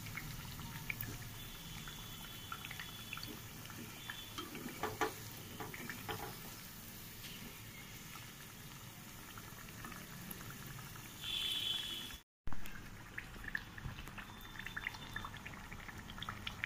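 Oil sizzling steadily as a stuffed poddo luchi deep-fries slowly on low heat in a kadai, with light clicks and scrapes of a steel spatula pressing and turning it against the pan. A brief louder hiss comes about two-thirds of the way in, then the sound cuts out for a split second.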